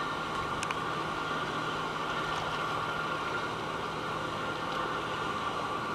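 Boat engine running steadily under an even hiss, with a steady high whine and a couple of light clicks.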